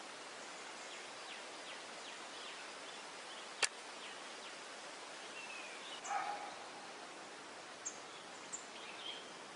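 Steady outdoor hiss with scattered short bird chirps, some sliding downward in pitch, and a single sharp click about three and a half seconds in.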